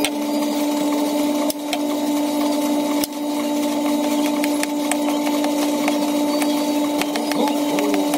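Knife slicing mango on a wooden cutting board, giving scattered light taps and cuts, over a steady electric hum.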